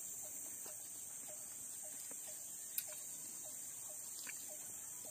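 Insects shrilling in a steady high drone that does not let up, with a short low call repeating about every half second beneath it and one sharp click near the middle.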